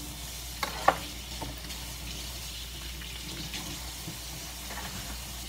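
Baby Virginia opossum chewing a slice of apple: soft wet smacking and small clicks, with two sharper clicks about a second in.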